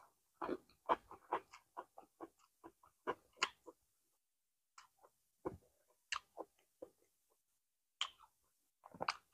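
A person chewing a mouthful of rice-paper-wrapped bánh cuốn roll with lettuce and herbs, close to the microphone: irregular wet smacks and clicks, thick in the first few seconds and then sparser.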